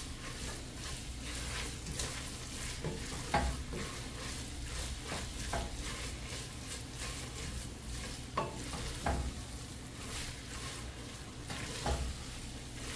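Shredded chicken and onions sizzling in melting butter in a metal pot as they are stirred and turned with a wooden spoon, with a few short knocks of the spoon against the pot.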